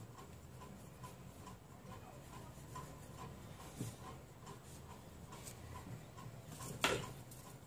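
Quiet room with a faint, even ticking about two to three times a second, a small click in the middle and a sharp tap about a second before the end, while a paper sewing pattern is handled on fabric laid on a table.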